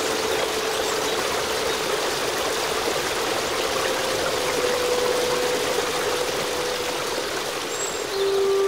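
Rushing river water, a steady even hiss, with a faint sustained musical note underneath. A louder held note comes in near the end.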